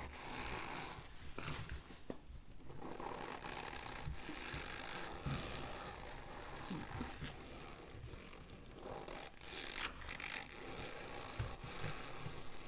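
Hands squeezing and kneading dry cornstarch, giving an irregular, crunchy rubbing and scraping.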